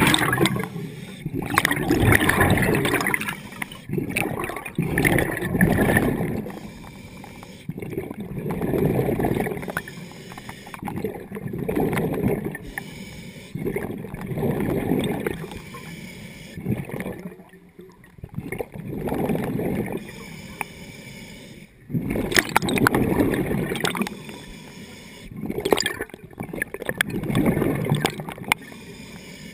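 A scuba diver breathing underwater through a regulator, with exhaled bubbles gurgling in a rising-and-falling cycle about every three to four seconds.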